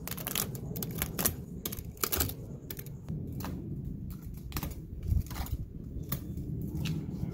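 Irregular sharp clicks and scrapes of a hand blade worked along aluminum trim molding, cutting through tough butyl sealant to free the molding from the sidewall, over a low steady background rumble.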